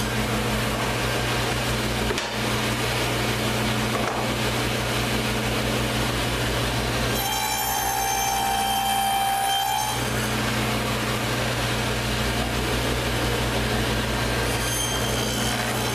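Table saw running steadily with a low hum. About seven seconds in, a higher whine rises for about three seconds as the blade cuts through a board, and a shorter one comes near the end.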